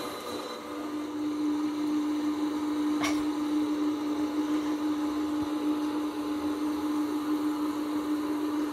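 A machine running with a steady hum, which grows louder about a second in; a brief click about three seconds in.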